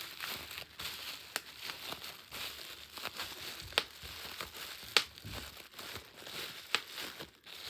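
Plastic bubble wrap crinkling as it is squeezed by hand, with sharp pops of single bubbles bursting every second or so, the loudest about five seconds in.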